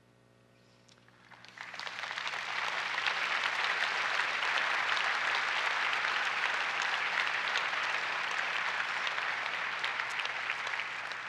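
Congregation applauding: the clapping starts about a second and a half in, swells quickly and holds steady, then begins to fade near the end.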